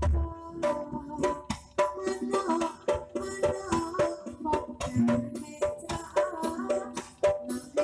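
Live Javanese jaranan gamelan music: quick, sharp hand-drum strikes in a busy rhythm over ringing pitched metal gong-chime tones.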